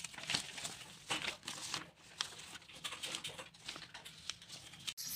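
Loose sheets of drawing paper rustling and crinkling as they are handled and leafed through by hand, in short, irregular rustles.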